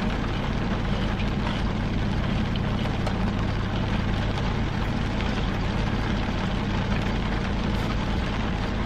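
Steady low hum of a car idling, heard inside the cabin, with rain pattering on the car.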